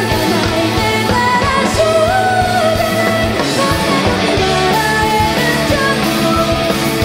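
Rock band playing live, a woman singing lead over electric guitar and full band.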